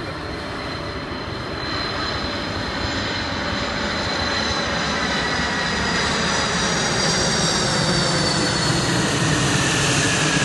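Large jet aircraft passing low overhead: several high whining tones that fall slowly in pitch over a dense engine rumble, growing steadily louder.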